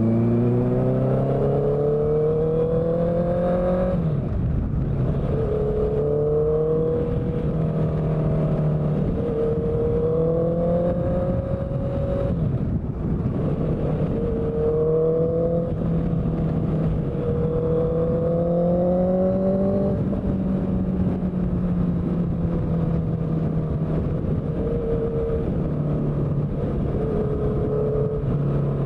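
Honda CBR650F inline-four engine through a CS Racing exhaust, under way: revs climb for the first few seconds, then the engine holds mid revs that rise and fall with the throttle, with brief drops in pitch at shifts about a third and two-thirds of the way through. A steady rushing noise runs underneath.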